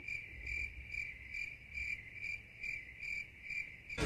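Cricket chirping at a steady pace of about two chirps a second, with every other sound cut away. It is the stock "crickets" sound effect for an awkward silence.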